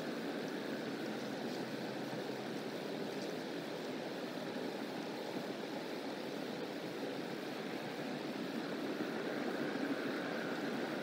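Steady rushing outdoor background noise with no distinct events, swelling a little near the end.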